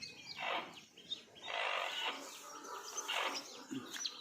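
Desi chicks peeping in short high chirps, with three bursts of rustling as the birds are handled and caught.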